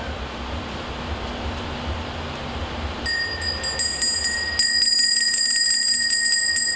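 A small metal hand bell starts ringing suddenly about three seconds in, shaken rapidly so that its high, steady ring repeats many times a second. Before it there is only a low, steady hum of crowd ambience.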